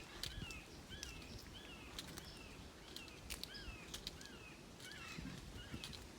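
Faint chorus of small wild animals calling: many short, hooked chirps, about two or three a second, from several callers at once.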